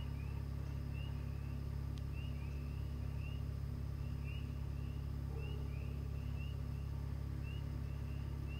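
Steady low hum under an evening chorus of short rising chirps, coming irregularly about twice a second, with one faint click about two seconds in.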